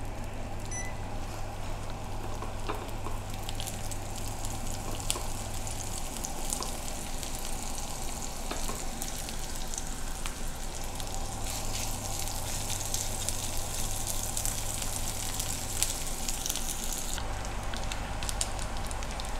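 Small dried anchovies sizzling and crackling steadily as they fry in a wok of hot oil. A low hum cuts out and returns partway through.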